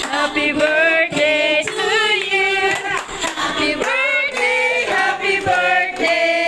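A group of people singing together, led by a woman singing into a handheld microphone.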